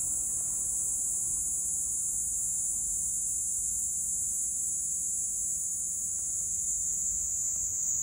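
Kaempfer cicada (Platypleura kaempferi) singing: a continuous, steady, high-pitched buzz without breaks.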